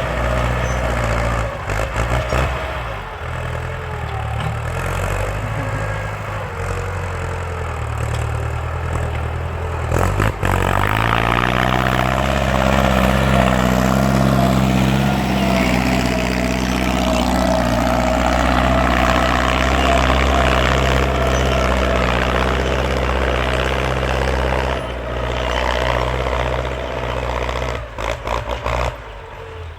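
Ford farm tractor engine running loud, its pitch climbing about eleven seconds in and holding higher, with a few brief drops in level near the end.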